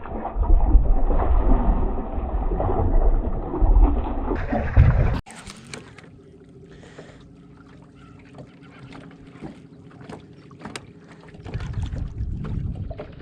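A boat on open water, with heavy low rumble and wind buffeting the microphone for about five seconds. It cuts off suddenly to a much quieter stretch with a faint steady hum and scattered small clicks, and the rumble comes back briefly near the end.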